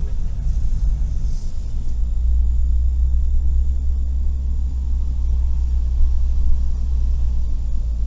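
Steady low rumble of tyres, road and engine heard inside the cabin of a Suzuki Every kei van driving down a winding mountain road, growing a little heavier about two seconds in.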